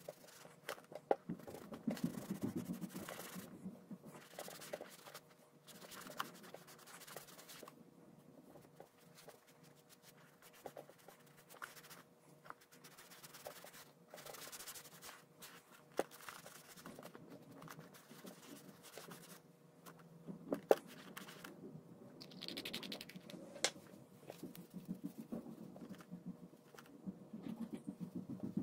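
Boot polishing brush scrubbing over a black leather riding boot in irregular scratchy strokes, with scattered small knocks and clicks as the boot and brush are handled.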